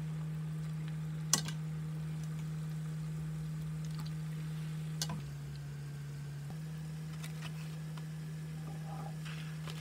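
A steady low hum that drops slightly in pitch for about a second in the middle, with faint frying of battered vegetables in hot oil and two sharp clicks of metal tongs against the pot.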